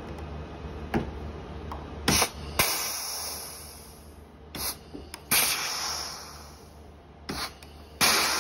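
Pneumatic blind-rivet gun pulling large flange rivets. Three times there is a sharp snap, each followed by a hiss of exhausting air that fades over a second or two, with lighter clicks of the trigger and nosepiece between. The gun is cycled more than once on a rivet, which the owner puts down to the worn tool sometimes not grabbing the mandrel.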